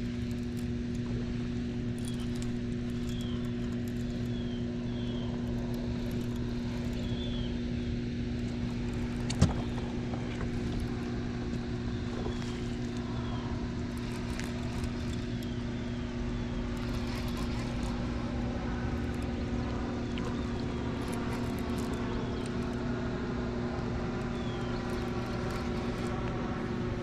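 A steady low electric hum made of several even tones. Faint short high chirps come and go above it, and a single sharp click sounds about nine seconds in.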